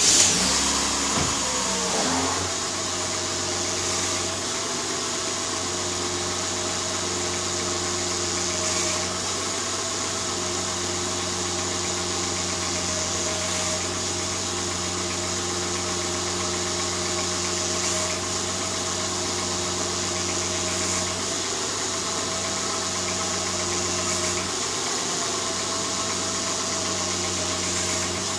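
2002 Honda Odyssey's V6 engine just after starting, its speed falling back to a steady idle within the first two seconds, then idling evenly. The steering is being turned lock to lock meanwhile, loading the power steering pump to bleed air from the freshly filled system.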